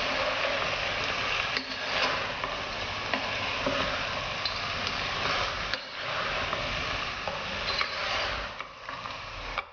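A spatula stirs pre-soaked basmati rice and mixed vegetables in a hot nonstick pot. It gives a continuous scraping, sizzling rustle with occasional light clicks of the spatula against the pot. The rice is being fried in the oil before water is added.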